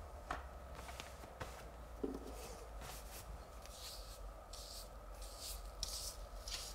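Faint rustling of a paper backscene as it is lifted from the wall and pasted back down, with a few small ticks and then a series of short scratchy rubbing strokes as paste is worked underneath and the sheet is smoothed flat.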